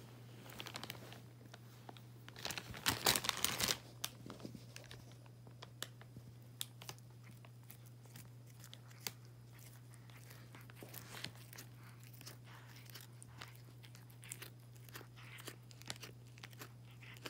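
A cat biting and chewing a raw spinach leaf: small crunching, tearing clicks, with a dense burst of crackling about three seconds in, then scattered quieter chews.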